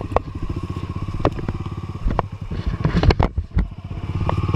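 Single-cylinder four-stroke trail bike engine running at low revs while a stuck bike is lifted and pushed free, with several sharp knocks and clatters about two to three and a half seconds in.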